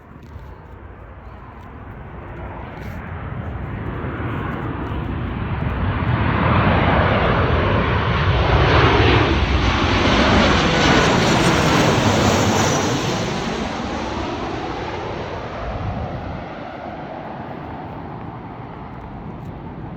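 Boeing 737-800 airliner's CFM56 jet engines passing low overhead on its approach to land: the noise swells to a loud peak about nine to twelve seconds in, then fades as the aircraft moves away.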